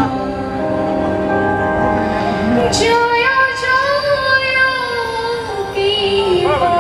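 A woman singing a folk song into a microphone over live band accompaniment, amplified through the stage sound system. From about three seconds in she holds long, wavering notes.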